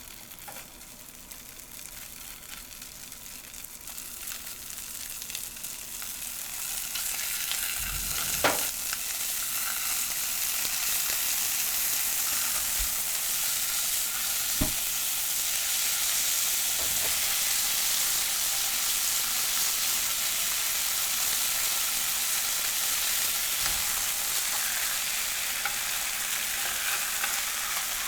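Food sizzling as it fries in a hot pan. The hiss builds over the first several seconds and then holds steady, with a few light knocks.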